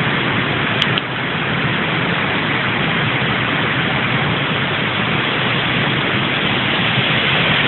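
Steady rushing noise of a nearby waterfall, an even wash of falling water with no change in level.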